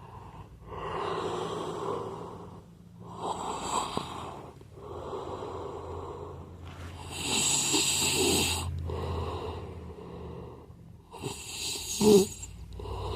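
A man snoring in his sleep: hoarse, rasping breaths about every two seconds, with a short, sharp snort near the end.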